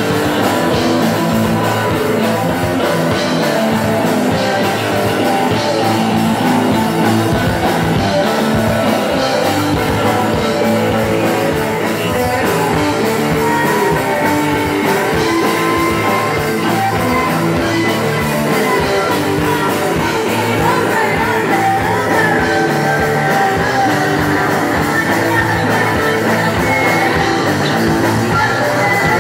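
Live rock band playing loud, with distorted electric guitars, bass guitar and a drum kit, and a singer's voice over the band.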